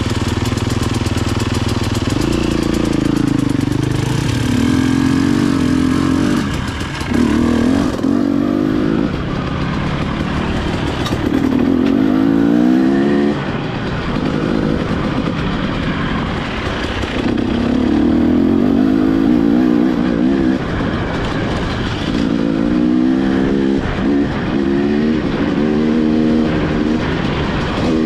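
Enduro dirt bike engine being ridden hard, revving up and easing off again and again, its pitch climbing in repeated runs as it accelerates and dropping back between them.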